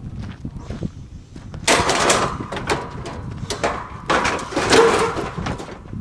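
Scrap metal and a satellite dish being shoved and rattled into a pickup truck bed: clattering and scraping in two longer stretches, about two seconds in and again about four seconds in, over a low rumble.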